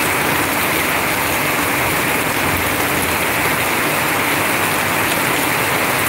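Heavy rain pouring down, a steady, dense hiss.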